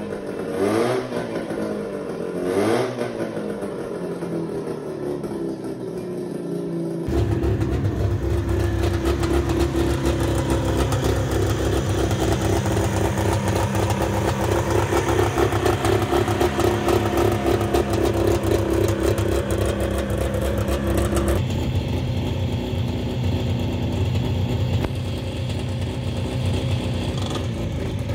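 Engine of a stripped-down Volvo Duett project car. In the first several seconds its pitch rises and falls through a few quick revs; after that it runs steadily with a dense rumble.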